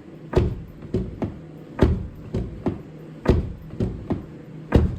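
Kia Rio X-Line car door being shut, four heavy thuds about a second and a half apart with lighter knocks between them. The door has sound-deadening insulation and no lock damper fitted yet.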